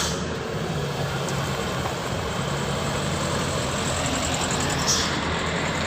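Heavy truck diesel engine running steadily, with a brief hiss about five seconds in.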